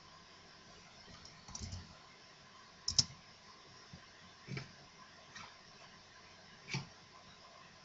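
Five scattered clicks and soft knocks of keys or a mouse at a computer over faint hiss, the sharpest click about three seconds in.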